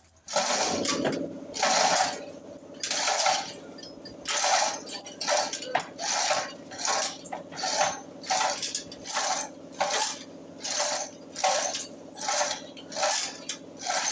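An electric motor starts and hums steadily while a sharp metallic clack repeats over it. The clack is irregular at first, then settles to a steady rhythm of about one and a half a second, like a lifting mechanism raising a car with its ratchet catching.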